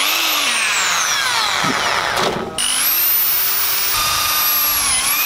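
Electric hand drill boring a hole through a bicycle handlebar tube. The motor whine falls in pitch over the first couple of seconds, stops briefly about halfway, then runs again more steadily.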